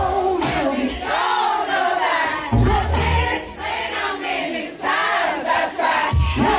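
Concert crowd singing along loudly with an R&B song, many voices at once over the music, with heavy bass hits about two and a half seconds in and again near the end.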